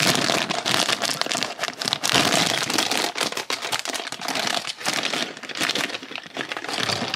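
A large clear plastic packaging bag crinkling and rustling continuously as it is handled. The bag holds smaller bags of toy building pieces.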